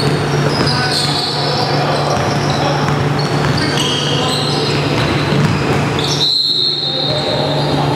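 Basketball being bounced on a hardwood gym floor, with sneakers squeaking in short high chirps, over a steady low hum.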